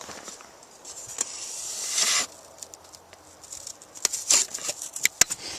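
Snow crunching and a tape measure being handled as it is pushed down into deep snow to measure its depth. A hiss builds and stops sharply about two seconds in, and scattered clicks and crackles follow near the end.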